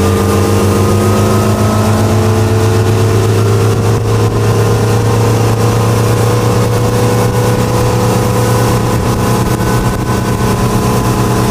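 Towing motorboat's engine running steadily at speed, its pitch creeping slowly upward, over a steady hiss of wind and rushing water.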